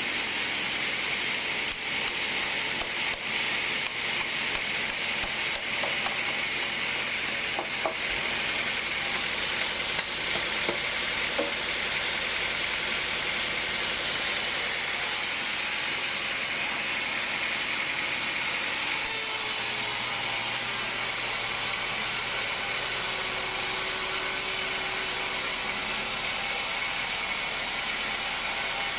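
Steady hissing noise of machinery running, with a few light clicks and knocks in the first half; the sound changes abruptly about two-thirds of the way through.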